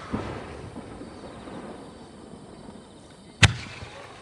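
Aerial firework shells. The rumbling echo of a shell burst dies away; then, about three and a half seconds in, one sharp bang rings out and echoes.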